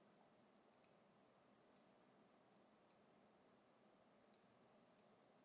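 Faint, scattered clicks of keys being typed on a computer keyboard, about eight in all, over a near-silent room.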